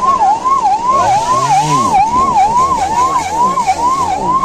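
Siren wailing in a fast, even up-and-down sweep, about two cycles a second, with fainter overlapping tones beneath it.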